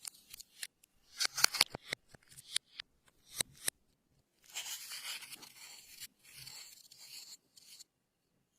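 Clear slime being worked by hand, giving a run of sharp clicks and pops, then a longer crackling stretch from about halfway through.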